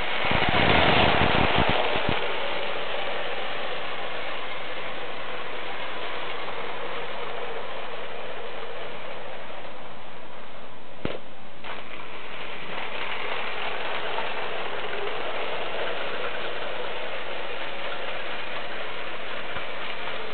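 Lego 9V toy trains running on the layout: a steady whirr and rattle of small motors and wheels on the track, louder with a run of clicks for the first two seconds and one sharp click about eleven seconds in.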